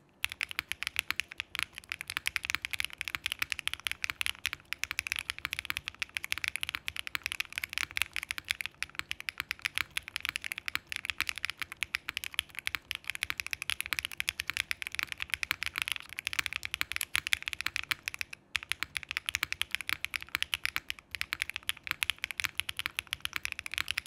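Continuous typing on a Dots87 mechanical keyboard with Briny switches, a polycarbonate plate and GMK Oblivion keycaps: a fast, unbroken stream of keystroke clacks, many per second.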